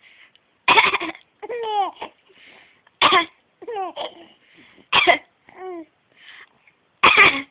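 A person coughing four times, about every two seconds, each cough followed by a run of high-pitched giggles that fall in pitch. The coughs are the loudest sounds.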